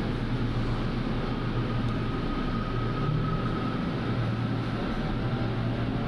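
LRT Line 2 electric light-rail train heard from inside the car as it pulls out of a station and gets under way: a steady low rumble, with a faint high whine from about a second in that fades a few seconds later.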